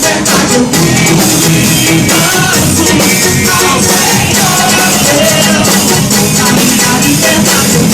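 Live worship band playing a rock-style song with drums, guitar and singing.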